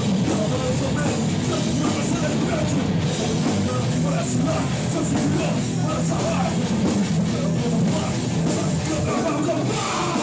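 Live hardcore punk band playing a song at full volume: drum kit and distorted guitars in a loud, dense wall of sound with no break.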